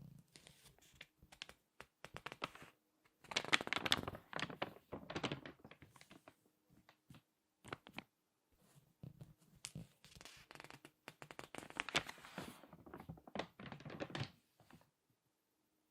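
Crinkly magazine pages crackling as they are squeezed and turned by hand, in irregular bursts, with two louder spells: about three to five seconds in and again from about eleven to fourteen seconds.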